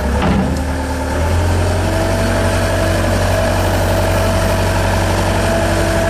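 Skid steer loader's engine running steadily, getting louder and deeper about a second in, with a steady whine over it from then on.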